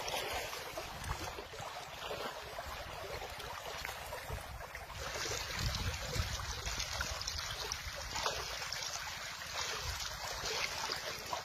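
A shallow river flowing steadily, with wind gusting on the microphone.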